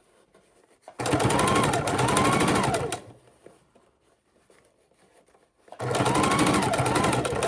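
Sewing machine stitching along double-sided bias tape on fabric in two runs of about two seconds each, with a quiet pause between. Its motor whine rises and falls in pitch as it speeds up and slows.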